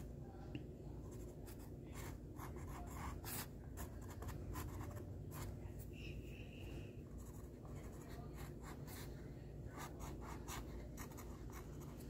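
Sharpie fine-point marker scratching across an acrylic-painted canvas in many short strokes as small details are drawn.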